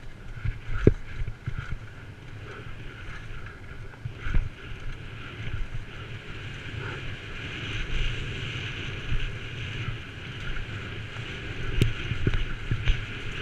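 Downhill mountain bike descending a dry dirt and rock trail at speed. Wind rushes over the camera microphone, the tyres run on the dirt, and the bike's chain and frame rattle. Sharp knocks from hitting bumps come about a second in, around four seconds in, and several times near the end.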